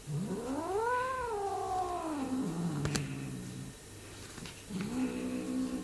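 Bengal kitten growling while biting a hand: two long, drawn-out growls, the first rising in pitch into a yowl and then sliding down into a low rumble, the second lower and held steady before dropping.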